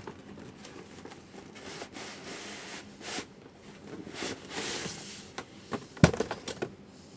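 Packaging rustling and crinkling in spurts as a boxed toy is unpacked, with one sharp knock about six seconds in.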